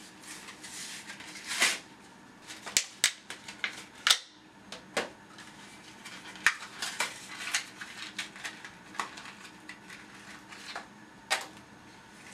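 Small plastic items and packaging being handled: irregular sharp clicks and taps, with a rustle of packaging in the first two seconds.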